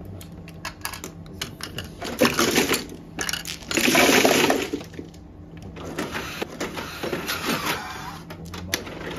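Plastic mahjong tiles clattering as they are swept across the felt and pushed into the centre opening of an automatic mahjong table. Scattered clicks build to a dense clatter, loudest about four seconds in, then thin out to a few light clicks.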